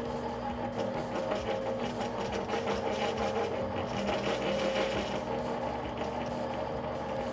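Eastwood 7x12 mini lathe running with a steady motor and gear hum while its high-speed steel bit faces the end of a spinning aluminum bar. The rough scraping of the cut grows louder for a few seconds in the middle and then eases.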